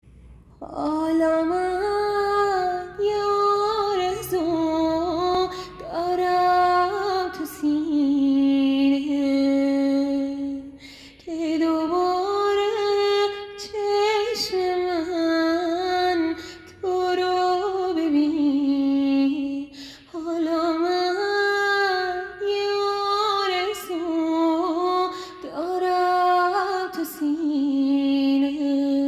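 A woman singing solo in phrases of a few seconds with brief breaks, several ending on a long held note.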